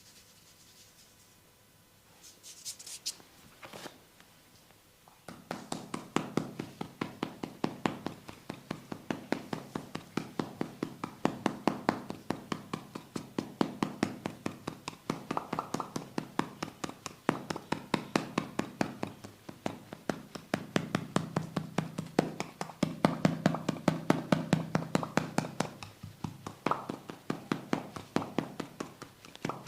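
Hands patting and tapping rhythmically in a massage, a fast run of sharp slaps several a second that starts about five seconds in, its pitch shifting as the strokes move. Before it comes a brief soft rustle.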